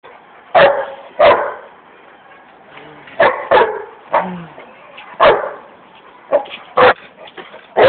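Pit bull barking: about eight short, sharp barks at irregular intervals, several coming in quick pairs.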